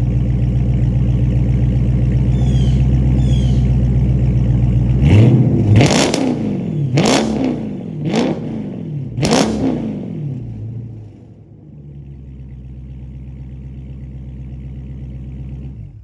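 Dodge Scat Pack's V8 idling, then revved four times in quick succession, each rev rising and falling in pitch. It settles back to a quieter idle and cuts off near the end.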